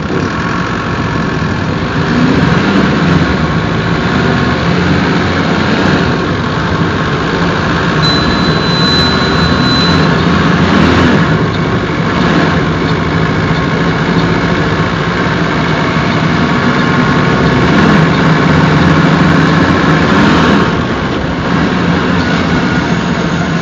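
Mercedes-Benz OF-1721 bus's OM-924LA four-cylinder turbodiesel engine running, its sound swelling and easing over several seconds and dropping back about three seconds before the end.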